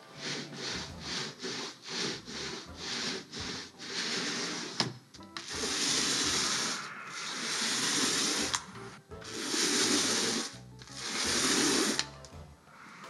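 Small foam paint roller rolled back and forth over a canvas: quick short rubbing strokes at first, then longer hissing strokes of a second or two each.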